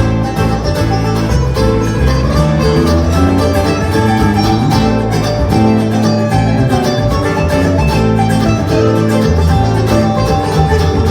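Bluegrass band playing an instrumental passage live, with banjo and guitar picking a fast, steady rhythm over bass.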